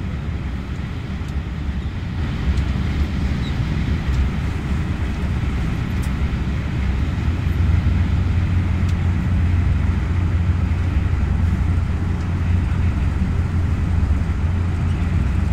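Fokker 50's twin turboprop engines heard from inside the cabin as the aircraft rolls after landing: a steady drone with a deep rumble, growing a little louder about two seconds in and again around the middle.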